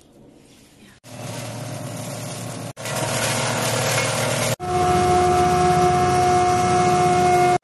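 Onion processing machines running in three short cuts that start about a second in, each louder than the one before: a crusher breaking up dried onion slices, then a grinding mill fed with dried onion flakes, running with a steady whine.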